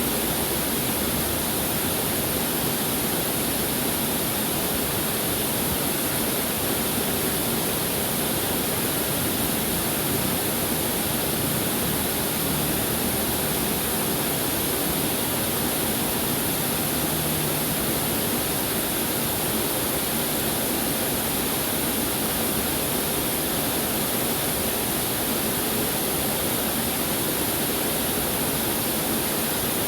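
Waterfall: water falling and splashing, a steady, even rush of noise with no breaks.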